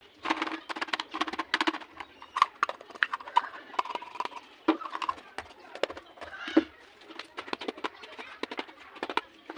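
Rapid, irregular clicking and tapping of plastic toy packaging and parts being handled.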